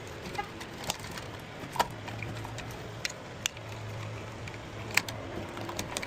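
About seven sharp, irregular clicks and snaps as a nail-on plastic electrical box is worked free of the wall opening, over a low steady hum.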